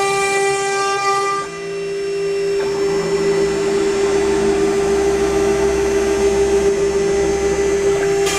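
Desktop 3030 CNC router's spindle running with a steady high-pitched whine, the bit cutting into wood sheet; a rougher cutting noise joins the whine from about two and a half seconds in and stops just before the end.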